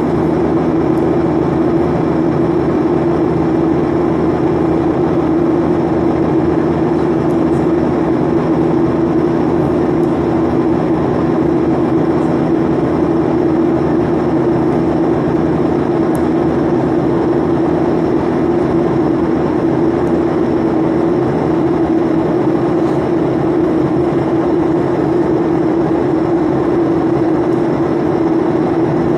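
Boeing 737 cabin noise in flight: a steady turbofan engine drone with a strong low hum over rushing airflow, unchanging throughout.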